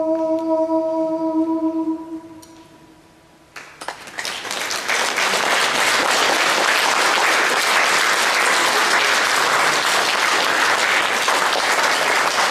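A long held sung note dies away about two seconds in; after a short hush, audience applause starts about four seconds in and carries on steadily.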